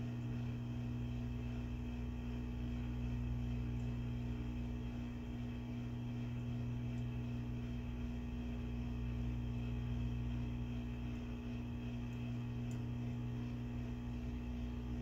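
Hot-air rework gun blowing steadily, with a steady hum from its fan motor.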